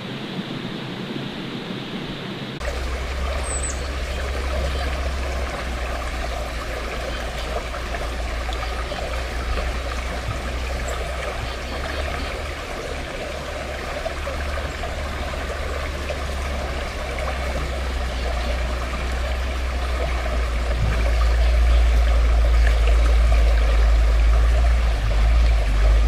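Water of a small creek flowing and trickling, with a steady deep rumble underneath that grows louder near the end. The sound changes about two and a half seconds in, and a single short high chirp comes soon after.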